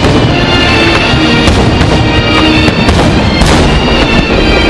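Aerial fireworks shells bursting with a few sharp bangs, the clearest about one and a half and three and a half seconds in, over loud music from a radio broadcast.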